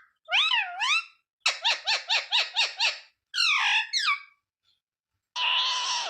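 Ringneck parrot calling: two warbling notes, then a quick run of about eight short chirps, a couple of falling notes, and a harsher raspy call near the end.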